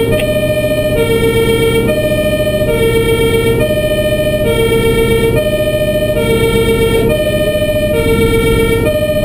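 A fire engine's German two-tone siren (Martinshorn) alternating between a low and a higher note, each held a little under a second, over the truck's engine and road rumble, heard from inside the cab.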